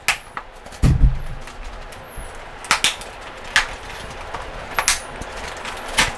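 Removable padding being pulled out of an off-road motorcycle helmet: a string of sharp clicks and snaps as it comes free, several in quick pairs, over fabric rustling. A dull knock about a second in.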